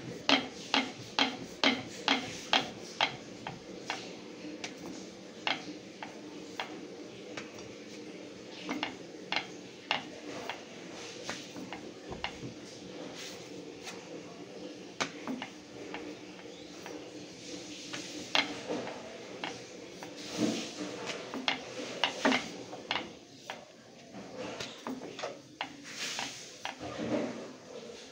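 Roti being rolled out on a wooden rolling board: a run of sharp clicks and knocks, about three a second for the first few seconds, then scattered knocks, over a steady low hum.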